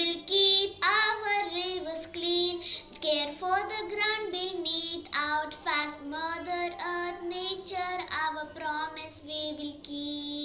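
A child singing a song, the melody gliding between notes and ending on a long held note near the end.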